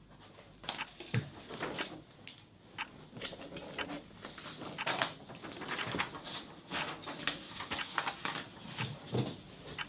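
Paper and pen handling: a string of short, irregular rustles, taps and scrapes.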